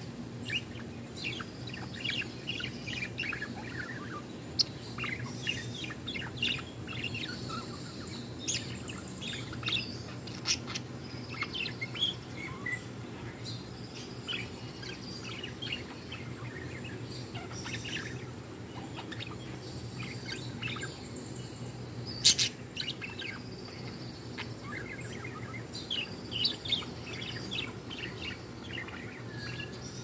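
Female budgerigar singing, a run of quick, high chirps and chattering notes that keeps going, with one sharp louder click about three quarters of the way through. A steady low hum runs underneath.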